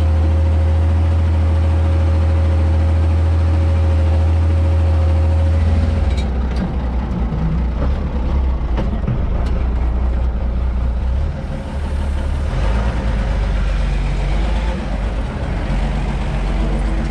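Ursus 1214 tractor's six-cylinder diesel engine running steadily, heard from inside the cab, with a thin whine over the low engine note. About six seconds in the whine stops and the engine sound becomes rougher and less even.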